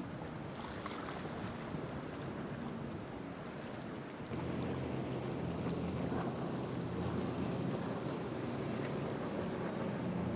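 Boat engine running with a steady low drone over wind and water noise; the engine grows louder about four seconds in.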